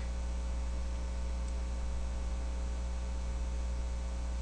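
Steady low electrical hum, like mains hum picked up by the recording, over a faint even hiss; it neither starts, stops nor changes.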